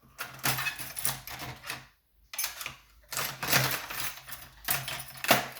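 Thin metal pick wires and tools clattering and rattling as they are rummaged through and handled, a run of quick clicks with a short pause about two seconds in.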